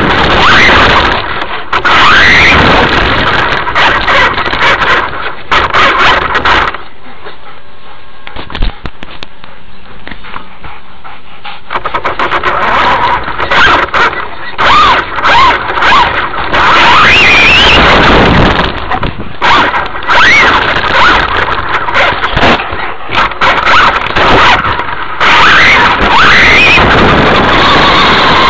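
Traxxas Rustler VXL RC truck's brushless motor whining up in pitch again and again as it accelerates, over loud rattling, tyre and wind noise picked up by a small camera mounted on the truck's shell. A quieter stretch of several seconds comes near the middle.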